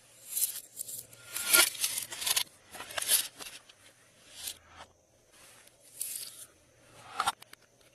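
Glossy slime being squished and stretched by hand, giving a string of sticky crackling squelches about one a second, with a few sharp clicks near the end.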